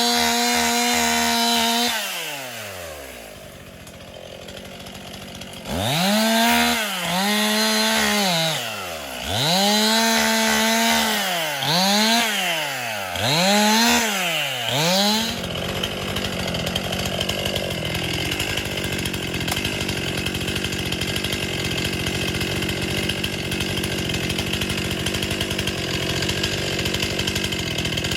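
Chainsaw engine held at high revs, dropping off about two seconds in, then revved up and down in four or five quick swells. For the second half it runs as a steady, noisier sound with no rise or fall in pitch.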